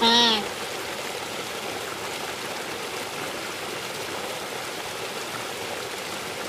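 A short bird call right at the start, then a steady, even rush of water noise.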